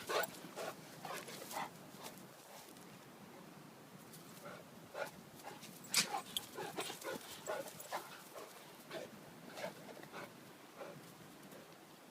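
Two puppies play-fighting, with short whimpers, yips and growls coming in quick runs, loudest about six seconds in.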